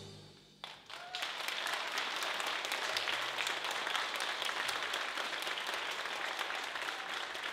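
The dance music fades out, and after a short pause an audience breaks into steady applause about a second in, many hands clapping.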